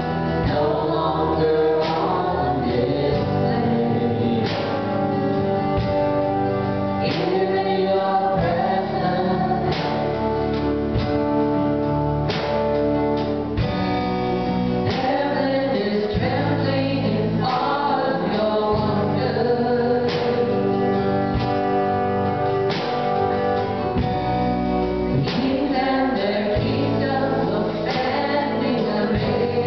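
Live worship band: several voices singing together over electric and acoustic guitars, keyboard and a drum kit.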